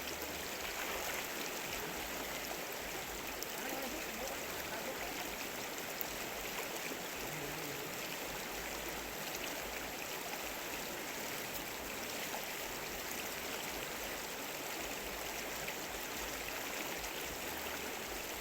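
Flowing stream water, a steady rushing and trickling.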